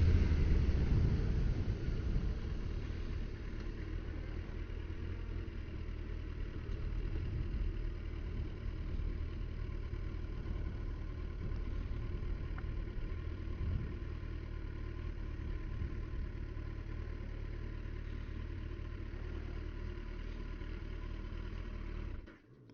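A vehicle engine running low and steady, as at idle. It eases down over the first couple of seconds, then holds, and cuts off abruptly near the end.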